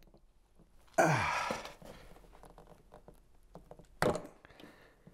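A man's audible sigh, a loud breathy exhale falling in pitch, about a second in. Faint handling clicks follow, and a short sharp knock about four seconds in as a wrench is worked at the outboard's drain plug.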